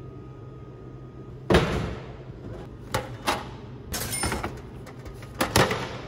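Drink vending machine dispensing a plastic water bottle: a loud thud as the bottle drops into the tray, then several sharp knocks and clatters as the delivery flap is pushed open and the bottle is taken out, over a steady low hum.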